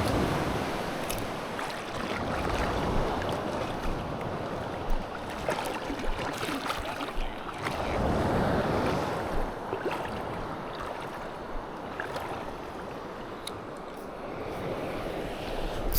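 Sea waves washing, swelling twice, with wind on the microphone.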